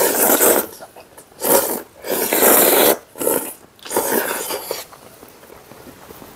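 Loud slurping of spaghetti noodles in a creamy sauce, in about five long drawn-in slurps over the first five seconds, then softer mouth sounds.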